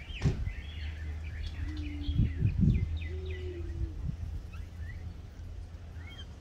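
Birds calling: short high chirps repeat throughout, with two drawn-out low steady notes near the middle, over a constant low rumble.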